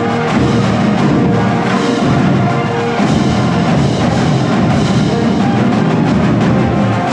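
High school band playing live: drums beating steadily under held wind and brass notes.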